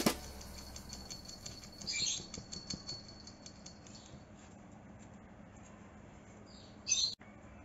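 Small dogs playing on a wooden floor: faint pattering and scuffling of paws, with two short high squeaks, one about two seconds in and a falling one near the end.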